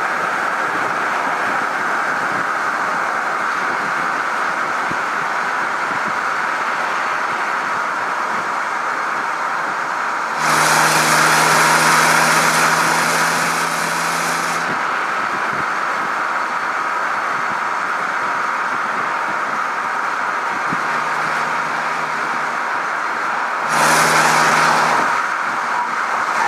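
Wind and tyre noise at autobahn speed on a camera mounted outside a BMW E92 325i. The stock exhaust of its N53 straight-six comes up as a louder, steady-pitched hum twice: for about four seconds midway and briefly near the end.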